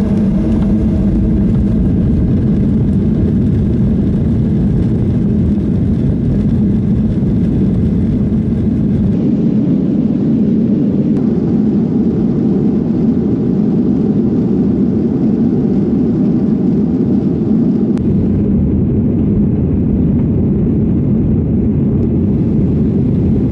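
Boeing 737 cabin noise: the jet engines and rushing air running steadily and loud, heard from a window seat inside the airliner.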